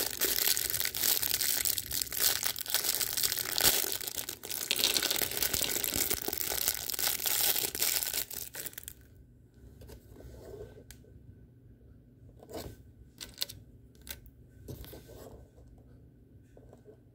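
Packaging being torn open and crinkled close to the microphone for about nine seconds, then quieter handling with scattered soft clicks and rustles.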